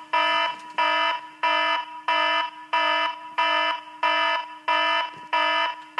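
Phone ringing with an incoming FaceTime call: a chime of several tones repeated about one and a half times a second.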